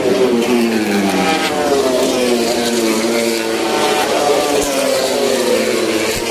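Racing superbikes at full speed passing along the straight, each engine's high note dropping in pitch as it goes by: one about a second in and another in the second half.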